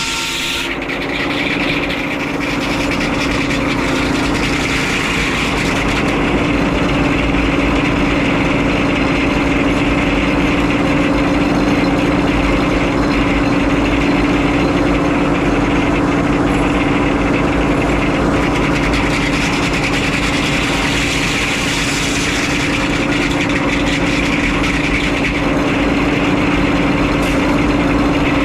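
Frick 01-C sawmill's engine and drive running steadily, with a strong even hum. A higher hiss drops away about a second in.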